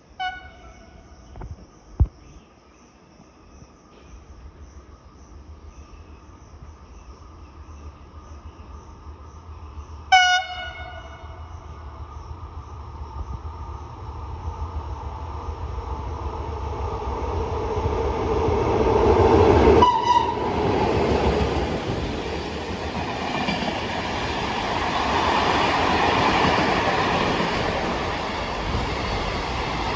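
A train sounds its horn in two short blasts about ten seconds apart. It then approaches and passes, the rush and rumble of wheels on rail swelling to a loud, steady noise.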